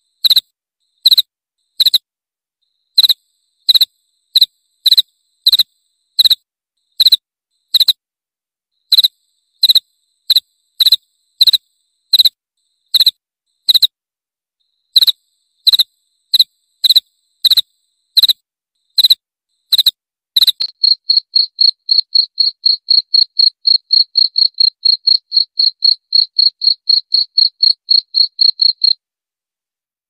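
Cricket chirping: loud, clear chirps about one and a half a second for the first twenty seconds, then a faster, even run of about four or five chirps a second that cuts off suddenly a second before the end.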